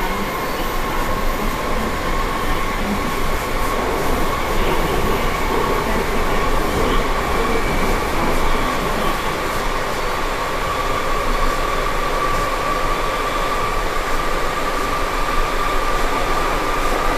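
Interior running noise of a Berlin U-Bahn type G car under way: a steady rumble and rattle with a high whine that rises slowly in pitch.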